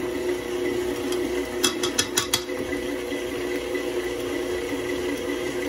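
Electric stand mixer running steadily, its motor humming as the wire whisk beats cake batter with flour being added. A quick run of about five sharp clicks comes roughly two seconds in.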